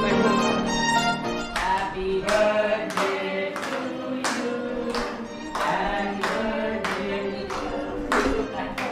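Group of people clapping hands in a steady beat, about two claps a second, starting about one and a half seconds in, over music with singing.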